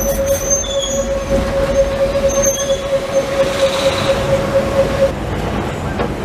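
Vintage tramcar running on street rails, heard from inside the cab: a steady rumble with a single-pitched whine that stops about five seconds in, and a few brief high wheel squeals.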